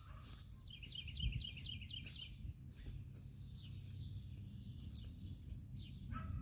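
A small bird singing a quick run of about ten repeated high chirps, starting just under a second in and lasting about a second, over a steady low rumble.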